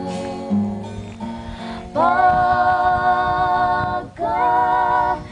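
Girls singing a song in Cebuano together to an acoustic guitar. About two seconds in they hold a long note, break off briefly near four seconds, then sing another held note.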